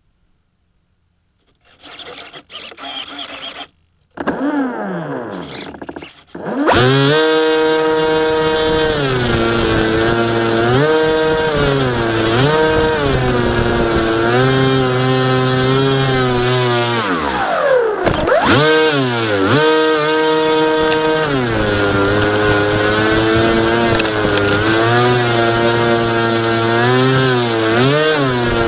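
Brushless electric motor (NTM 4248, 650kv) turning an 11x8 propeller on an RC model plane, heard from the plane's own camera: after a few faint knocks it spins up and then runs with a loud whine whose pitch rises and falls with the throttle, dipping briefly and coming back near the middle.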